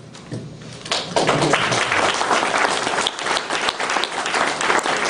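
Audience applauding: the clapping starts about a second in and then holds steady and dense.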